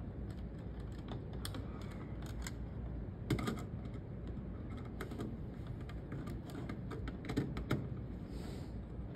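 Scattered light clicks and taps from a screwdriver and wire ends being worked into the screw terminals of a plastic alarm wiring module, over a low steady hum.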